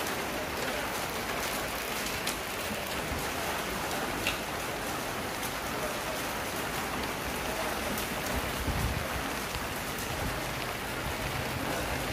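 Steady rain falling on a flooded street and standing floodwater: a continuous even hiss with scattered drop ticks.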